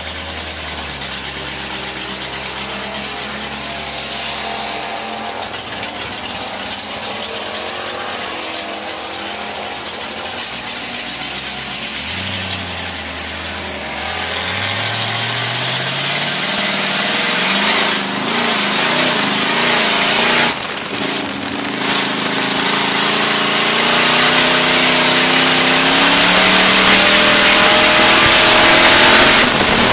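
Dirt-track stock car engine heard from inside the car, running low and steady at first, then revving up about twelve seconds in and pulling harder and louder. Near the end the engine sound is thickened by a growing wash of track and wind noise.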